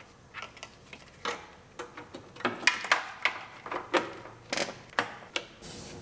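Plastic wiring-harness connectors and corrugated loom being handled and pushed into their sockets at a truck's firewall: irregular small clicks, taps and plastic rustles. A short steady hiss starts near the end.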